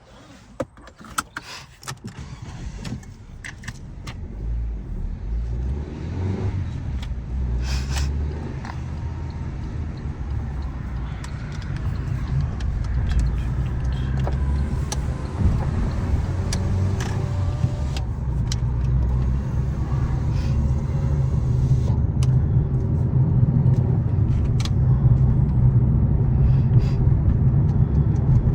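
A 2014 Fiat 500L: a few clicks and a key rattle, then the engine starts about two seconds in and runs with a steady low hum that grows gradually louder as the car gets under way, with occasional sharp clicks.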